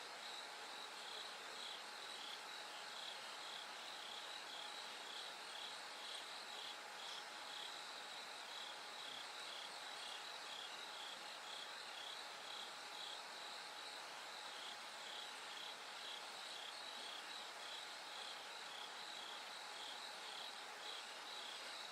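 Bell crickets singing: a steady run of short, high ringing chirps, about two a second, over a faint even hiss.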